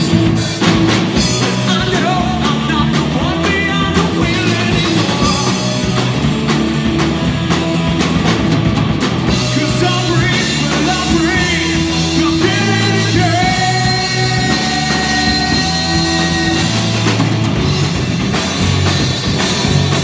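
Rock band playing live, with electric guitars and a drum kit, and a man singing.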